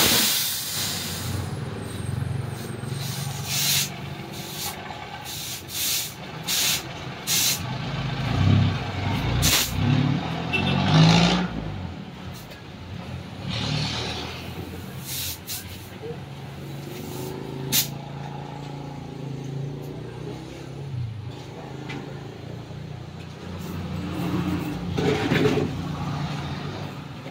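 Compressed air hissing from a tire-shop air hose in repeated short bursts as a tire is inflated, over the engine hum of passing road traffic.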